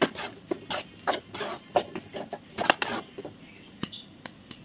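Metal spoon stirring a thick vegetable-and-egg stuffing in a metal cooking pan: quick, irregular clinks and scrapes against the pan, busy for about three seconds and then more scattered.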